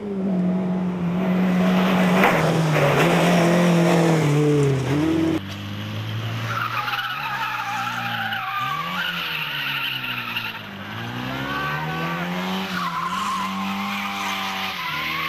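Rally car engines running hard with tyres skidding: one car loud and close for about the first five seconds, its engine note falling, then after a sudden cut another car revving up and dropping back again and again through gear changes.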